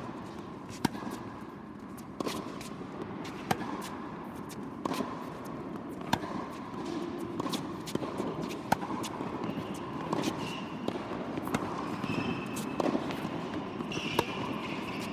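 Tennis rally on an indoor hard court: sharp racket strikes and ball bounces recur about every second and a quarter, each followed by the hall's reverberation.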